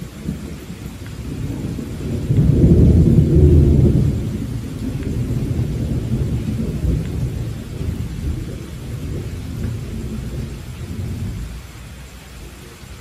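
A long roll of thunder over steady rain. The low rumble swells over the first couple of seconds, is loudest about three seconds in, then slowly dies away near the end.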